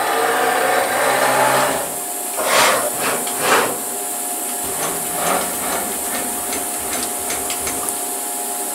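Stepper motors of a CNC milling machine driving its axes on ballscrews during a touch-probe routine. A pitched whine for about the first two seconds, two louder swells a second apart a little later, then faint light ticks over a steady hum.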